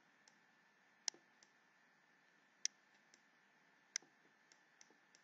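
Sparse sharp clicks of a computer mouse button as letters are drawn with it: three louder clicks about a second and a half apart among a few fainter ones, over near silence.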